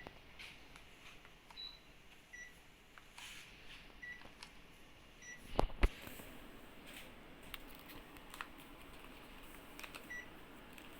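Several short, high electronic beeps at one pitch, a second or more apart, from a Panasonic mini split air conditioner's indoor unit, the kind it gives when it takes a remote-control command. Two sharp knocks about halfway through are the loudest sounds.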